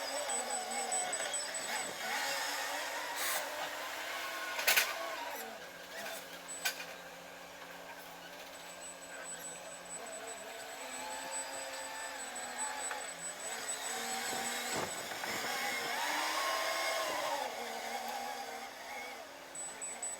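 Urban street traffic: vehicles pass one after another, their engine sound swelling and fading over several seconds, over a steady low hum, with one sharp knock about five seconds in.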